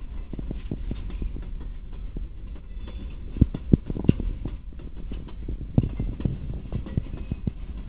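Empty flat container wagons rolling past on the rails, with irregular clanks and knocks from the wheels and couplings over a low rumble. The sharpest knocks come in a cluster about three and a half to four seconds in and again near six seconds.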